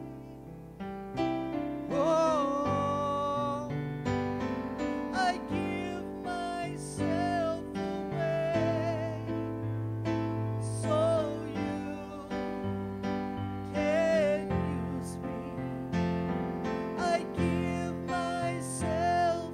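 Slow worship music on a keyboard: sustained piano-like chords under a held melody line with vibrato.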